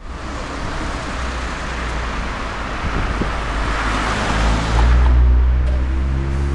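Diesel engine of a Hino Rainbow bus running as the bus pulls away from the stop, with passing traffic. It grows louder about four and a half seconds in, settling into a steady low engine hum.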